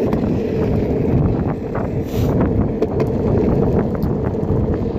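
Longboard wheels rolling over asphalt: a steady, loud rumble with a constant hum, with wind buffeting the microphone. A few short sharp ticks are scattered through it.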